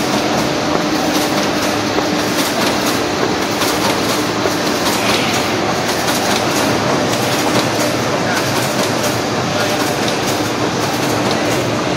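Standard Horizon SL-5500 Stitchliner saddle-stitching line running in production: a loud, steady mechanical clatter of feeders and stitching and folding mechanisms, full of quick clicks over a constant hum.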